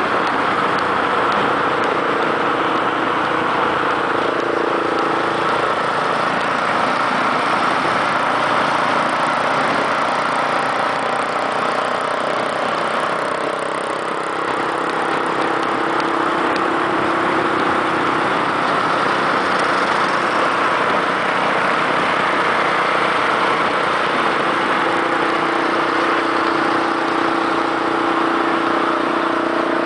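Yamaha XT660R single-cylinder engine running steadily at a cruise of about 60 km/h, heard from on the bike with wind rushing over the microphone. Other motorcycles' engines run close around it.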